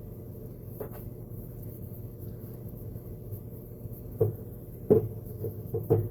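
Light clicks and knocks of hand tools and metal parts as bolts and screws are worked out of a radial arm saw's motor case: one click a little under a second in, then a run of sharper knocks in the last two seconds, over a steady low hum.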